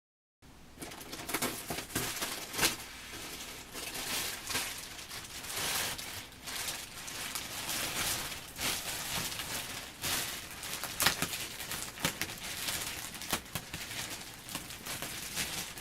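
Plastic packaging being handled, crinkling and rustling without a break, with many sharp clicks and crackles throughout.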